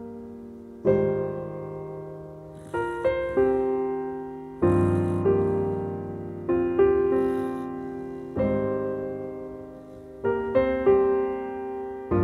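Background music: a slow solo piano piece, notes and chords struck about every one to two seconds and left to fade.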